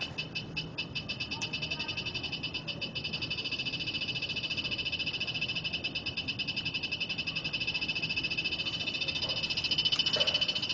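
Satellite finder meter beeping: a rapid, high-pitched pulsed tone, several beeps a second, getting gradually louder toward the end. The beeping means the meter has caught the satellite signal while the dish is being aligned.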